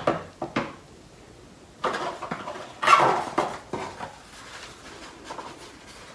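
Cardboard packaging being handled: a few sharp knocks near the start, then scraping and rustling as the webcam's inner cardboard tray is gripped and lifted, loudest about three seconds in, then fainter rustling.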